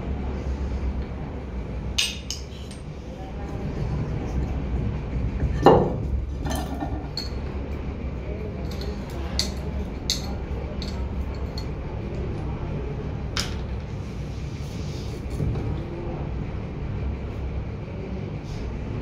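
Scattered metal clinks and knocks as the rusty parts of an old piston water pump are handled and taken apart, with one sharper knock about six seconds in, over a steady low hum.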